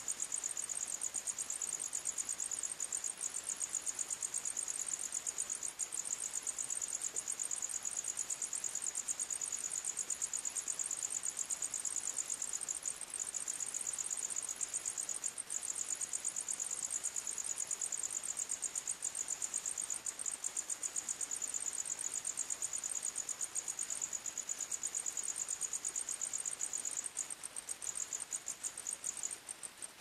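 Cricket chirping: a high, rapid, steady trill that breaks into more separated chirps near the end.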